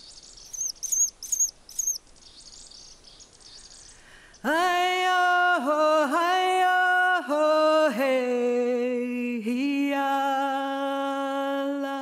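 High chirping calls of ancient murrelets, with a run of four quick chirps about a second in. After about four seconds a single voice starts singing long held notes, sliding up into each one, which is the loudest sound.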